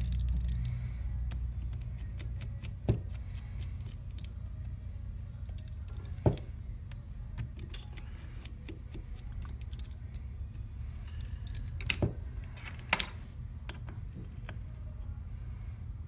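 A steady low hum with scattered sharp clicks and taps as small repair tools and the phone are handled on the bench, loudest about three seconds in, around six seconds, and twice near twelve to thirteen seconds.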